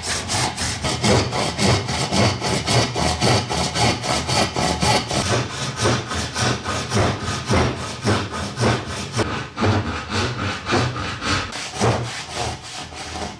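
Tenon saw cutting through thick hard maple by hand, in quick, even back-and-forth strokes, several a second, stopping right at the end.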